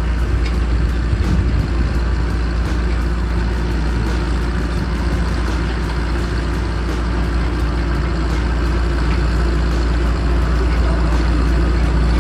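Bulldozer's diesel engine running steadily with a heavy low rumble.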